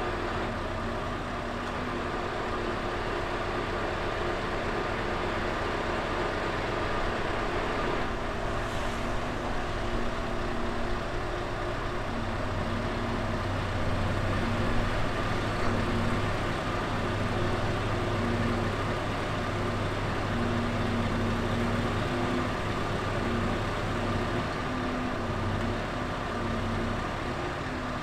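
Scania R650's 16-litre V8 diesel running at a steady raised speed to drive the Copma 1150 loader crane's hydraulics while the crane lifts a heavy container module. The low engine note is stronger through the middle of the lift.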